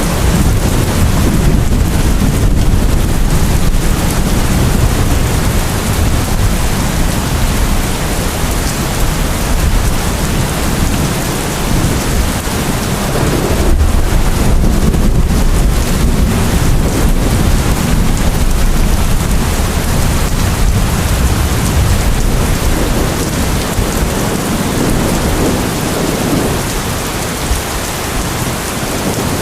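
Steady heavy rain with a continuous deep rumble underneath.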